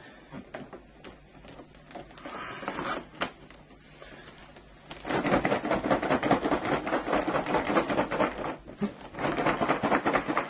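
Cardboard figure box being worked open: light handling clicks, then about halfway through a long stretch of cardboard and packaging scraping and rustling as the tight-fitting box is slid apart, with a short break near the end.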